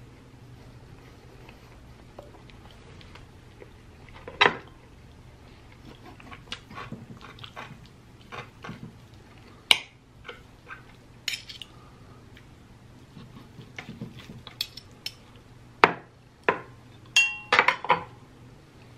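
Metal knife and fork clinking and scraping on a ceramic plate while cutting into chicken and taking bites, with chewing between. Scattered, irregular clinks, several sharper ones close together near the end.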